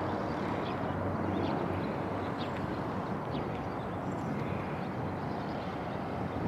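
Steady outdoor background noise with a low hum, and a few faint scattered clicks.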